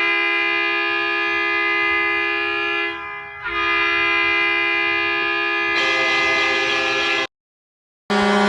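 Junior hockey arena goal horn, a loud multi-tone air horn, blowing steadily with a short dip about three seconds in. Its tone changes near six seconds, then it cuts off abruptly after about seven seconds. After a second of silence, the next goal horn starts right at the end.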